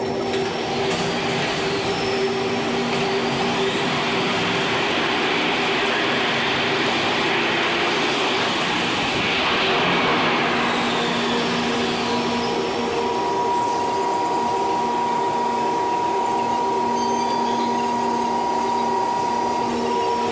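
Chicago 'L' Red Line subway train running steadily through the tunnel: a continuous rumble and hiss of wheels on rail with steady low humming tones. It swells a little about ten seconds in, and a higher steady whine joins at about twelve seconds in.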